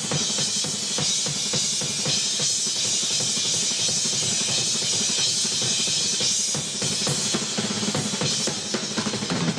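Drum kit solo at speed: a continuous wash of crashing cymbals over rapid, densely packed drum strokes. Near the end the cymbals thin out and separate hits on the drums stand out.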